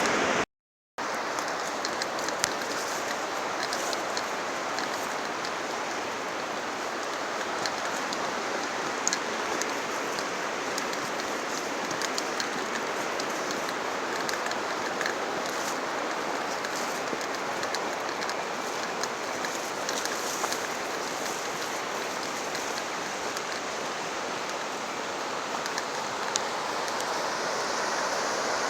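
Creek water rushing in a steady, even hiss, with a short dropout just after the start.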